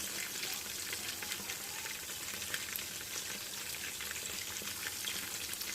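Chicken wings frying in hot oil in a pan: a steady sizzle with fine crackles and pops throughout.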